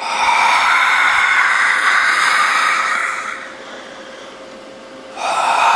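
Ghost breath sound effect: a long, loud, breathy rush of air lasting about three seconds that fades away, then a second breath starting near the end.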